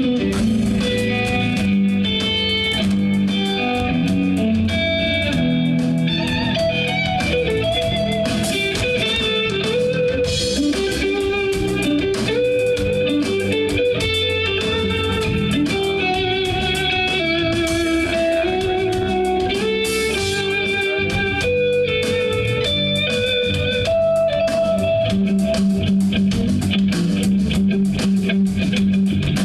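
Live band playing an instrumental tune, an electric guitar carrying the melody over bass.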